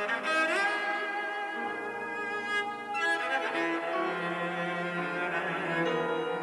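Cello and piano playing a slow, sustained passage of contemporary chamber music, mostly in the low register. The cello slides up into a held note about half a second in, and new notes enter about three seconds in.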